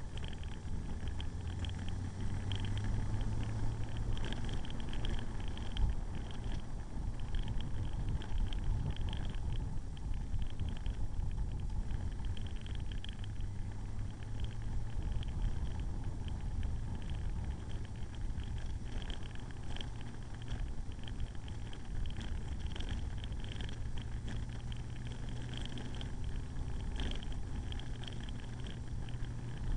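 Motorcycle engine running along at road speed, heard from a camera on the bike, with a steady engine note that swells a few times and wind rumble on the microphone.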